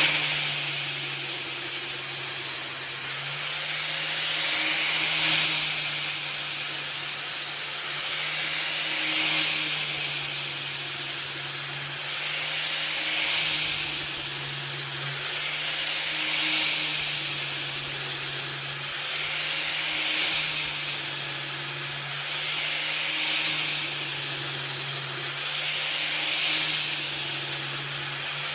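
Angle grinder running on a blade-sharpening jig, grinding the edge of a steel mower blade in repeated passes about every three to four seconds. Each pass brings a bright grinding hiss and the motor's pitch dips a little under the load.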